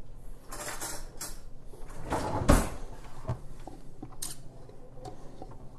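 Kitchen utensil drawer being rummaged through with a rattle, then pushed shut with a thump about two and a half seconds in; a sharp click follows a little over a second later.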